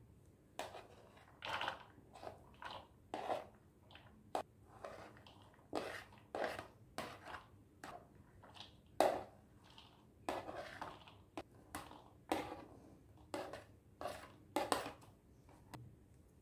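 A spoon scraping chopped vegetables (onion, capsicum, cabbage, corn) off a plastic plate into a plastic mixing bowl: a string of short, irregular scrapes and soft rustles, a little under one and a half a second on average.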